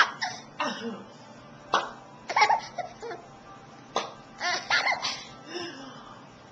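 Six-month-old baby laughing hard in short bursts, each burst right after a sharp popping sound; three pops, about two seconds apart.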